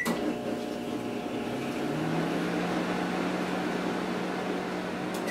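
White-Westinghouse countertop microwave oven running on its pizza setting: a steady hum of the fan and magnetron. It opens with a short keypad beep, and a deeper hum comes in about two seconds in.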